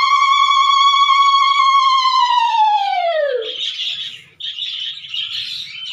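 A conch shell blown for puja in one long, loud note that sags in pitch and dies away about three and a half seconds in. Then small cage birds chatter and chirp.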